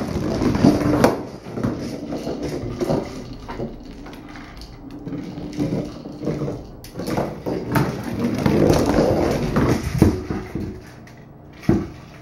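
Hard plastic IQ Treat Ball treat-dispensing toy rolling and knocking across a hard floor as a dog pushes it with its nose. It makes an irregular run of knocks and rolling rumble, loudest about a second in and again about ten seconds in.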